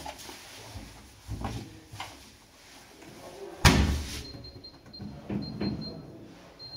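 A Beko front-loading washing machine's door is pushed shut with a loud thud about halfway through, after a few lighter knocks. Then the control panel gives a series of short high beeps as its buttons are pressed to set the programme.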